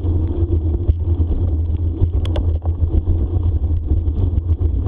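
Steady low rumble of wind on the microphone and rolling noise from a bicycle moving fast along a dirt trail, with a few light clicks and rattles.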